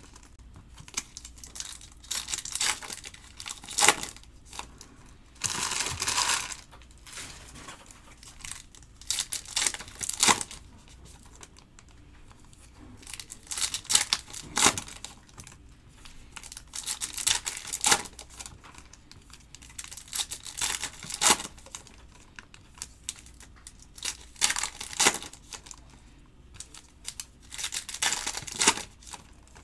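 Foil trading-card pack wrappers being torn open and crumpled, in sharp crinkling bursts every second or two, with one longer tear about six seconds in.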